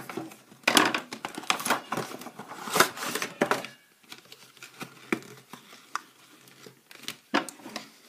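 Toy packaging being opened by hand: crinkling and tearing for the first few seconds, then quieter handling with a few sharp clicks.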